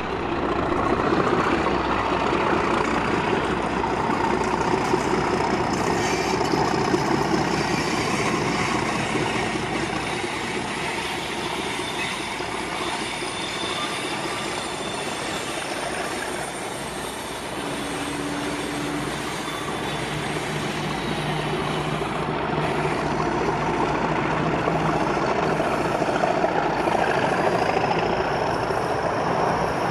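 A pair of Class 37 diesel-electric locomotives, each with an English Electric 12-cylinder engine, working hard at full power as they pull a test train away. The engine noise is loud and continuous, eases slightly about halfway through and builds again later.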